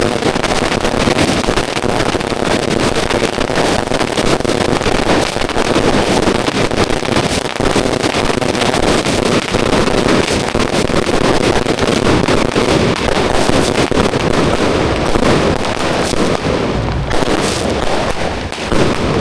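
Firecrackers going off in a dense, continuous barrage of rapid bangs and crackles, too fast to count, easing briefly near the end.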